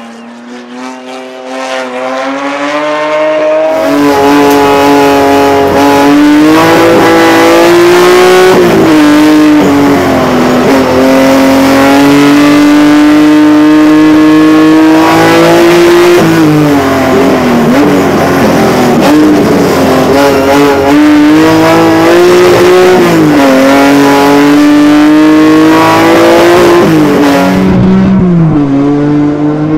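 The BMW 635 CSi Group 2 race car's 3.5-litre M88 straight-six running at full race pace. It is quieter at first as the car pulls away, then loud from inside the cockpit. Its pitch climbs and drops several times as the car accelerates, shifts and slows for the bends.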